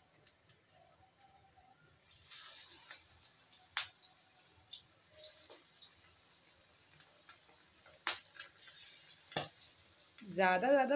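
Marinated pomfret pieces deep-frying in hot mustard oil in a karahi: a sizzling hiss that picks up about two seconds in as another piece goes into the oil, with a few sharp pops and crackles.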